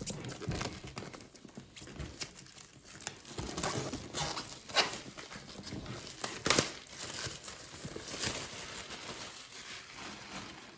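Game cards and packaging being handled: irregular light taps and clicks with crinkling rustles. The sharpest clicks come about halfway through.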